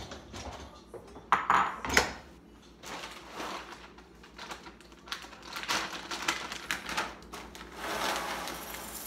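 Kitchen clatter of dishes and a glass being handled on a stone counter: a few loud knocks about a second and a half in, then lighter clicks and taps. Near the end a plastic cereal bag rustles as it is picked up and opened.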